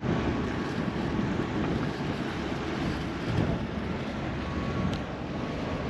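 Wind buffeting the microphone as a steady, fluttering low rumble and hiss, with a faint click about five seconds in.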